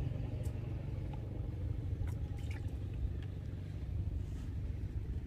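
A steady low rumble, with a few faint light clicks.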